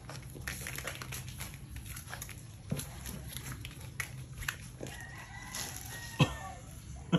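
A rooster crows once, a long held call about five seconds in, over the clicking and scuffling of a dog's claws on a tiled floor; a sharp thump just after six seconds is the loudest sound.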